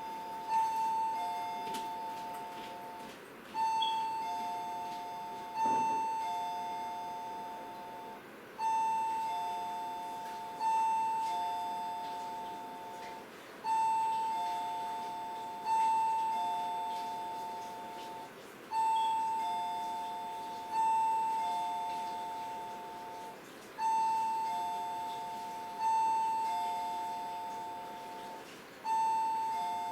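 A two-note chime ringing over and over in a steady pattern: two strikes about two seconds apart, repeating every five seconds, each note ringing on and fading.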